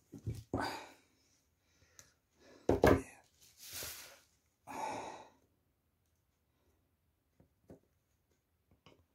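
Tools being handled on a wooden tabletop during soldering: a few knocks, the loudest about three seconds in as pliers are set down. Two breathy exhalations follow at about four and five seconds, then a few faint small ticks.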